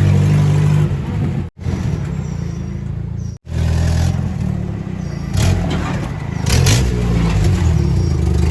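Toyota 22R four-cylinder engine running with an exhaust leak, its sound swelling and easing. The sound cuts out abruptly twice in the first few seconds.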